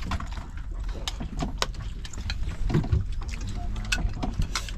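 Bowls and chopsticks clicking and clinking as a boat crew eats, many small sharp knocks, over the fishing boat's steady low engine rumble.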